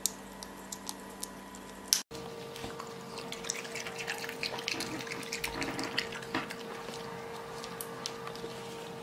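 Raccoon eating grapes: wet smacking and small irregular clicks from chewing and licking, over a steady low hum.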